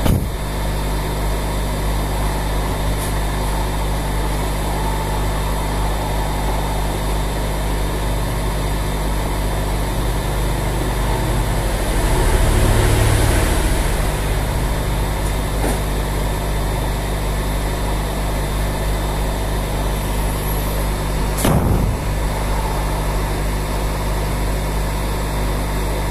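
Hot air rework station blowing steadily onto a phone mainboard's CPU to melt the solder under it: a continuous rush of fan and air, swelling louder for a couple of seconds about halfway through. Two short clicks, one at the start and one near the end.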